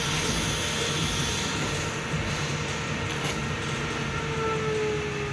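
A steady rushing noise throughout, with scraping and rustling as the packing tape on a cardboard box is slit with a knife and the flaps are pulled open.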